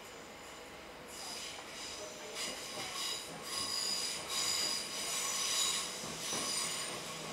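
Train wheels squealing on the rails in a series of shrill, uneven swells that start about a second in.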